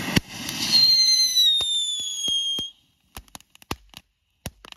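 Two small ground fountain fireworks spraying sparks with a loud hiss and a whistle that slowly falls in pitch, cutting off abruptly after a little under three seconds. Scattered sharp crackles follow.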